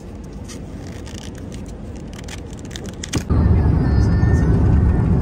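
Road noise inside a car cruising on a highway: a loud, steady low rumble that starts suddenly about three seconds in. Before it, a quieter car-interior rumble with light rustles and clicks of handling.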